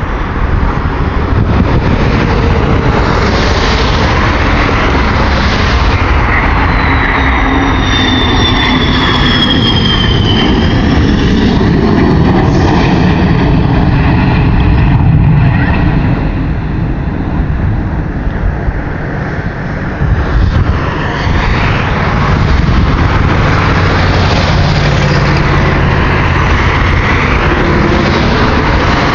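Military fighter jet passing low overhead on its landing approach: loud jet engine noise, with a high turbine whine that falls in pitch as it passes about a third of the way in.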